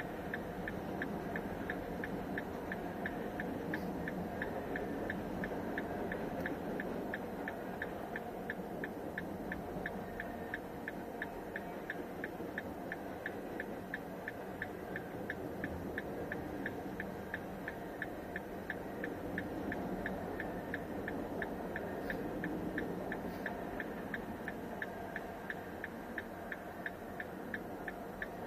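Freight train rolling through a level crossing, its wheels on the rails making a steady rumble. Over it the crossing bell dings evenly, about twice a second.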